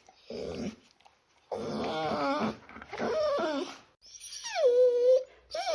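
A dog whining and yelping in a series of wavering, pitched calls; the last one falls and is then held as a long whine.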